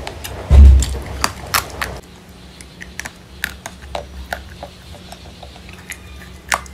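Close-miked eating sounds: sharp clicks and crackles from candy and chocolate pieces being handled and bitten, with a heavy low thump about half a second in. After a drop in the background about two seconds in, quieter scattered clicks come as a molded chocolate piece is picked off the tray, then a loud crisp bite near the end.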